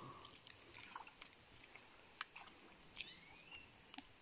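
Faint small splashes and ticks of water as a person wades through a shallow, weedy creek, with a short chirping bird call about three seconds in.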